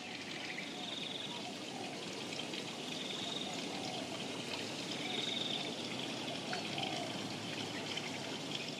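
A steady rushing noise like running or trickling water, with a faint short trilling call repeating about every two seconds.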